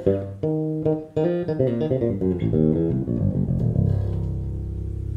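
FL Custom six-string electric bass played: a quick run of plucked notes, then a low note held and left ringing from about four seconds in.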